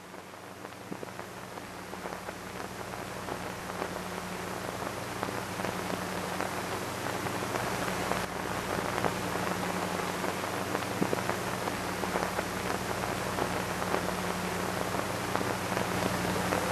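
Steady rain-like hiss with scattered ticks, slowly fading in and growing louder, over a low steady hum.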